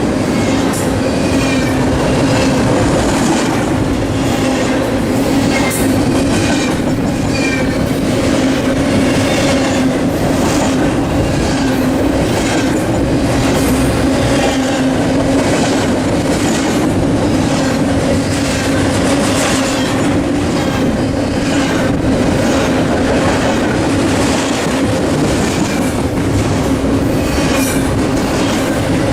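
Double-stack container freight train rolling past: a steady rumble and hum of steel wheels on the rails, with irregular clicking and short wheel squeals.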